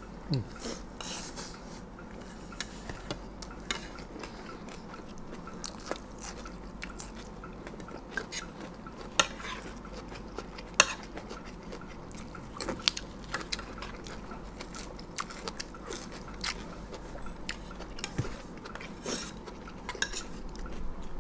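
Spoons and forks clinking and scraping on plates during a meal of spicy fried-egg salad, with chewing. Irregular small clicks throughout, with two sharper clinks about nine and eleven seconds in.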